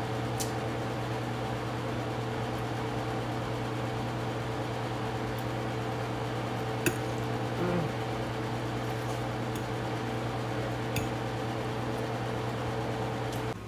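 Steady electrical hum of a running kitchen appliance, which cuts off near the end, with a few light clicks of a fork against a plate or dish.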